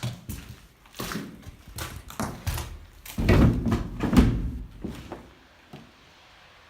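A run of irregular knocks and thuds in an echoing room. They are loudest and densest about three to four seconds in, then die away.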